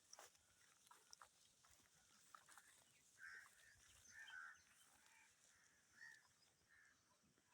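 Near silence, with a few faint, short animal calls from about three seconds in.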